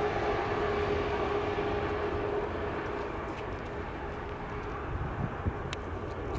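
Airbus A321neo's turbofan engines running at taxi power as the jet turns on the taxiway, a steady rushing hum; a steady tone within it fades out a couple of seconds in.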